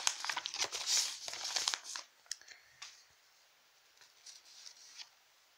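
Folded paper leaflet being unfolded and handled, crinkling and rustling for about two seconds, then a few faint taps and soft rustles as it is flattened out.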